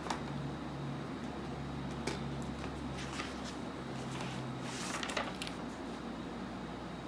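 A few light clicks and knocks of household things being handled, over a steady low hum.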